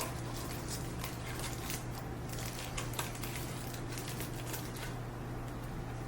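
Small crackles and clicks of hands working sticky tape and aluminum foil over the end of a cardboard paper towel tube, thinning out near the end, over a steady low hum.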